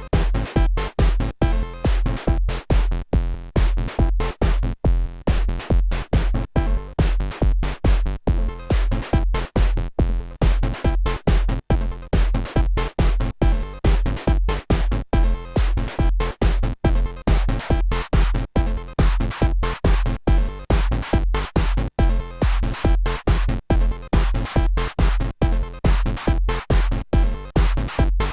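Electronic music with a steady drum-machine beat, about three beats a second over deep bass.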